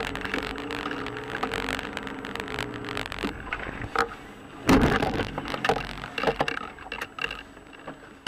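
Car driving on a wet, slushy road, heard through the dashcam inside the car: a steady hum with scattered clicks and rattles, and a loud, sudden burst of noise about four and a half seconds in as an oncoming car passes.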